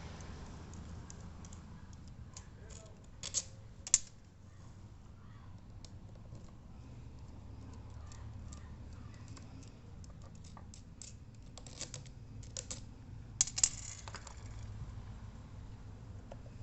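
Scattered light clicks and taps of small parts being handled while an electric fan is taken apart, with a few sharper knocks about three to four seconds in and again near the three-quarter mark, over a low steady hum.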